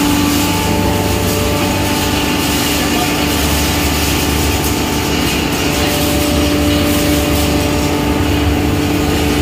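Belt-driven hammer mill pulverizer for grinding maize and cattle feed, running at speed: a loud, steady machine noise with a steady whine, and a deeper rumble that swells about three seconds in.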